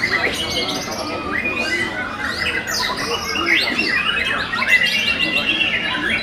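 Young white-rumped shamas (murai batu) singing all at once: a dense, unbroken tangle of overlapping whistles, rising and falling glides and fast chattering trills from many caged birds.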